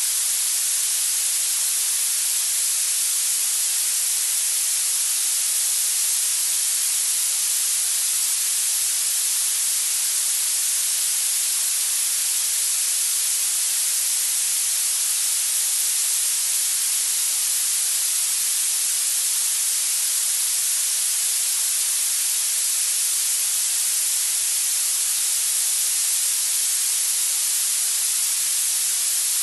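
Steady synthetic hiss, a noise weighted toward high pitches, played as a tinnitus-masking sound for habituation therapy. It stays even and unchanging, with no tones or breaks.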